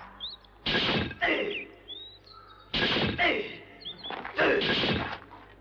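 Three pairs of sharp chop strikes, two blows in quick succession each time, about two seconds between pairs. Birds chirp faintly in the gaps.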